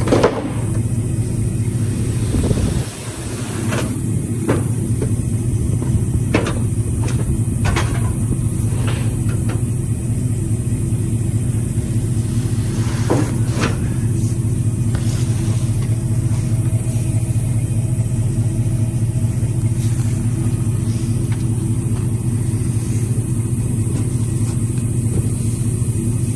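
A truck engine idling steadily, with a scattering of knocks and thumps as heavy cardboard boxes and a wooden pallet are shifted and set down on the trailer floor and in a pickup bed.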